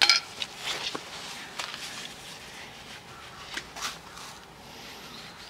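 A few scattered scrapes and clicks from hoof-trimming work on a pony's hoof, the sharpest scrape right at the start.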